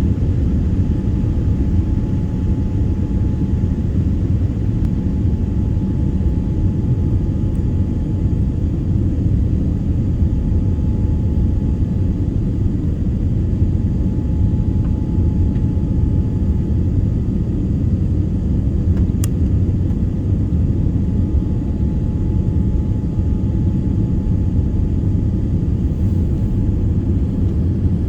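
Steady low rumble of an airliner's cabin, engine and airflow noise, with a faint steady whine over it. A single small click about two-thirds of the way through.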